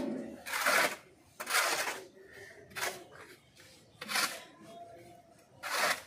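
Steel shovel scraping across a concrete floor as it scoops and turns a heap of sand-cement mix, about five strokes roughly a second apart.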